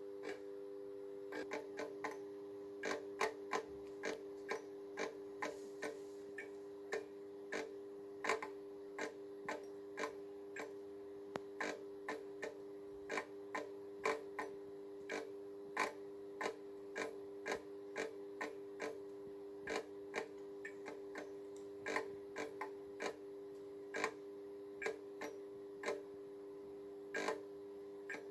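A fluorescent fitting's glow starter clicks irregularly, roughly one or two clicks a second, over the steady hum of its magnetic ballast. The starter keeps cycling because the end-of-life Philips TLD 18W T8 tube will not strike and glows dull orange instead of lighting.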